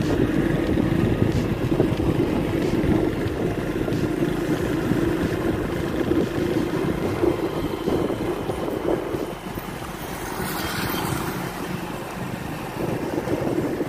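Motorcycle engine running steadily while the bike is ridden, heard from on the motorcycle itself with road and air noise. The engine eases off about nine seconds in and picks up again near the end.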